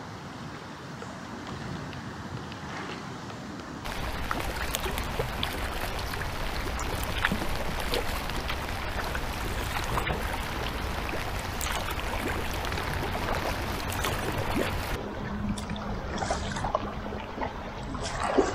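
Paddling an inflatable kayak: paddle blades dipping, water splashing and dripping in many small ticks. The sound jumps louder about four seconds in and drops back about three seconds before the end, where a faint low steady tone comes in.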